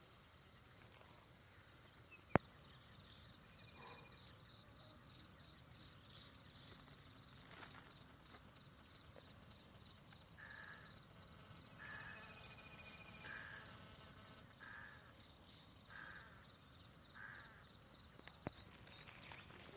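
Faint countryside ambience with insects trilling steadily and a high insect buzz in the middle. A bird gives a series of six short calls, about one a second, from about ten to seventeen seconds in. A sharp click comes about two seconds in and another near the end.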